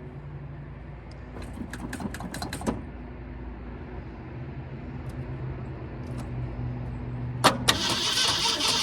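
Keys and small clicks, then about three-quarters of the way in a sharp click as the starter engages and the 1968 Ford Torino's engine begins cranking with a fast, even churn without catching: there is no spark, because the rotor has been left out of the distributor.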